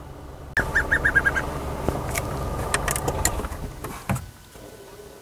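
A bird's rapid run of about seven high, evenly spaced piping notes, which the watchers wonder may come from a perched pale chanting goshawk. Under it is a loud low rumble with scattered clicks and one sharp knock near the end.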